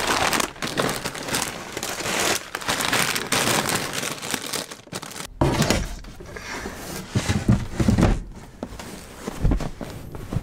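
Plastic food packaging crinkling and rustling as groceries are shifted about in an under-seat storage locker, followed in the second half by several knocks as the wooden locker lid is lowered into place.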